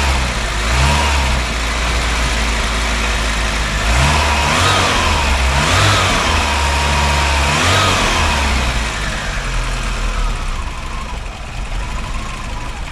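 SEAT Toledo Mk1 1.6 CL's carburetted 1.6-litre petrol four-cylinder engine running just after a start, revved up and back down several times and then settling to a steady idle in the last few seconds.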